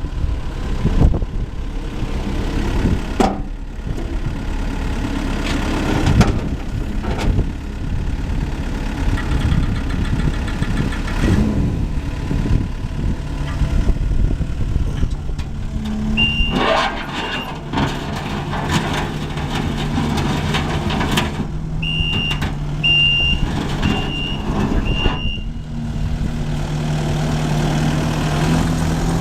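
Kubota SVL75 compact track loader's diesel engine running under varying load, its pitch shifting as the machine works. Its backup alarm beeps once a little past halfway, then four times about a second apart near the end.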